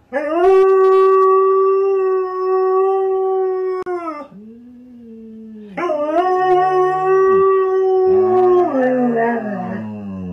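Siberian husky howling: a long, steady howl of about four seconds, a quieter low moan, then a second long howl that wavers and falls away at the end, with a lower, quieter voice under it.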